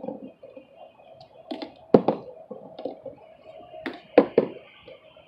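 Hollow plastic knocks and clicks from a toddler handling a plastic ball-tower toy: a sharp knock about two seconds in and three quick knocks near four seconds.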